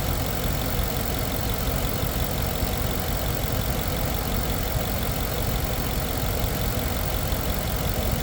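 Ford 5.0 V8 in a 2011 F-150 idling steadily during injector testing for a misfire.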